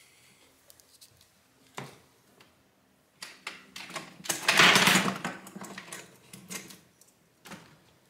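Off-camera fumbling through spare parts, likely laptop RAM sticks: scattered clicks and clatter, with a louder rustling clatter a little past halfway.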